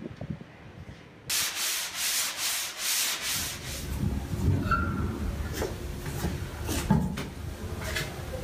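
Sandpaper rubbed hard over a wooden panel in quick back-and-forth strokes, about four a second, starting suddenly about a second in. This gives way to handling noises and a few knocks as a large panel is shifted against the wall.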